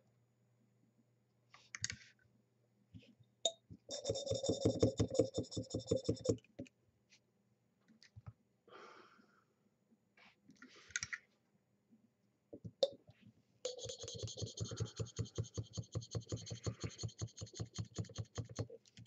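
Plastic syringe drawing and pushing out propylene glycol: two runs of rapid clicking at about eight clicks a second, the second run longer, with a few single ticks between them.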